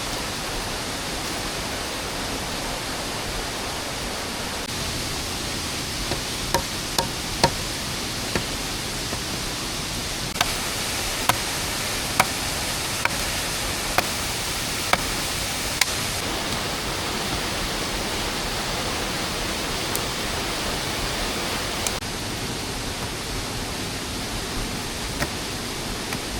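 Steady hiss of rain, with sharp knocks cutting through: a few scattered ones, then a regular run of about one a second for several seconds in the middle.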